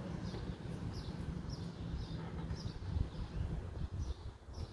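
A bird chirping over and over, short falling chirps about twice a second, over a steady low rumble.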